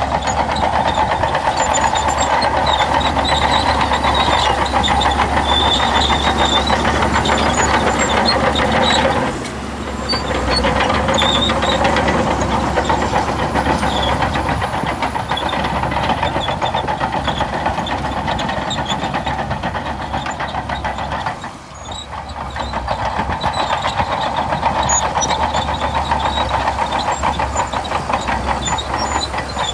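Shantui DH17C2 crawler bulldozer's diesel engine running under load with the steady clatter of its steel tracks, easing off briefly twice, about nine seconds in and again about twenty-two seconds in.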